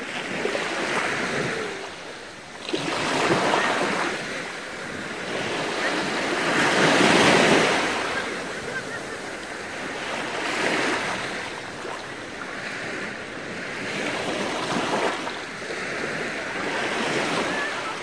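Small waves washing up a sandy beach and drawing back, each wash swelling and fading every few seconds; the loudest comes about seven seconds in.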